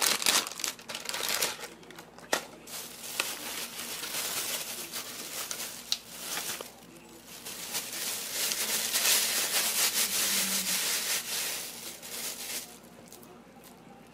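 Dried seasoned laver (gim) being crushed by hand into flakes: dry crinkling and crackling, with scattered sharp crackles in the first half and a denser, louder stretch in the second half that stops shortly before the end.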